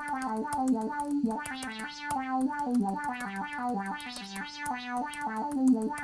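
Korg MS-20 software synthesizer playing a fast, stepping melody with a bright lead patch set up to imitate the Yamaha SY-2 'huehua' sound, over a steady ticking beat.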